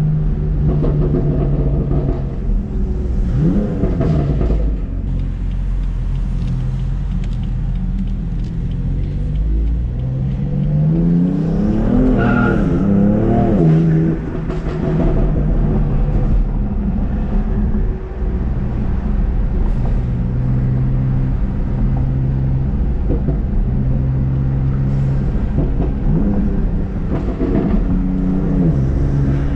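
BMW F80 M3 Competition's twin-turbo 3.0-litre inline-six, tuned to Bootmod3 Stage 1, running steadily with brief revs a few seconds in and near the end. About ten seconds in it pulls hard, the revs climbing for a few seconds before dropping away suddenly.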